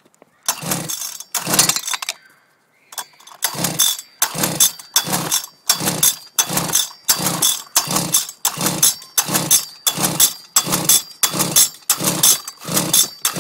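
Goped Riot 46's two-stroke engine being pull-started over and over with the choke on, cranking in rapid strokes without ever firing: two pulls, then a steady run of about one and a half pulls a second. The engine won't start for a reason the owner can't find.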